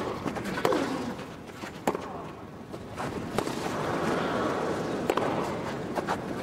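Tennis rally on a grass court: about five sharp racket-on-ball strikes a second or so apart, one of them with a player's short falling grunt about a second in, over steady crowd noise.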